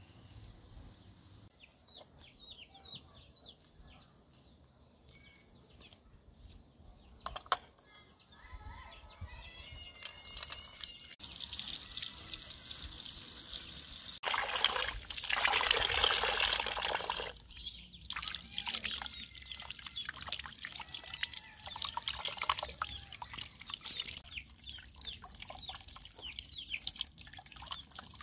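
Water from an outdoor tap running and splashing onto a raw whole chicken in a metal tray as it is rinsed by hand. The splashing is loudest for a few seconds in the middle. Before the water starts, about eleven seconds in, small birds chirp faintly.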